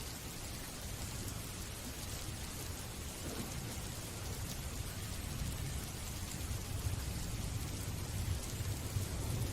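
Steady rain falling, an even hiss of drops. A low rumble builds under it over the second half and grows a little louder toward the end.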